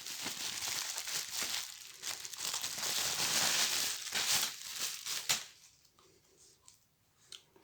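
Packaging wrapping crinkling and rustling as it is handled and pulled open, with sharp crackles throughout; it stops about five and a half seconds in, followed by a couple of faint ticks.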